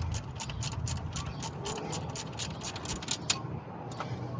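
Socket ratchet clicking quickly and evenly, about six clicks a second, as it backs out a throttle body mounting bolt. The clicking stops with a louder click a little past three seconds in.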